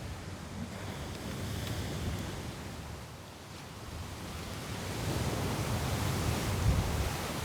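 Ocean surf breaking on the beach in a strong wind, swelling louder in the second half, with low wind buffeting on the microphone.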